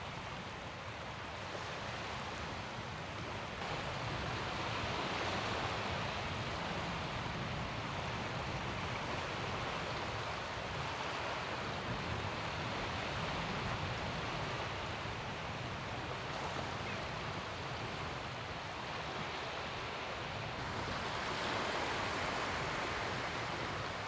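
Small waves from the bay washing in over a shallow sandy shore: a steady wash of surf that swells a little louder a few seconds in and again near the end.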